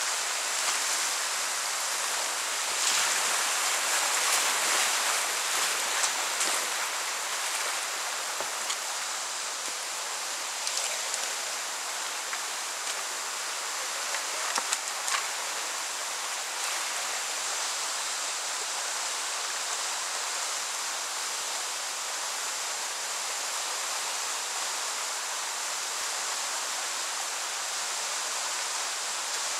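Whitewater rapids rushing steadily, heard from a kayak in the current, with louder splashing a few seconds in and a couple of short splashes about fifteen seconds in.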